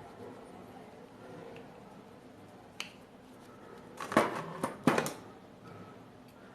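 Sharp clicks and knocks of tools at work on a circuit board while a TDA2030 amplifier IC is being desoldered and removed: one click about three seconds in, then a quick cluster of louder clicks a second or two later.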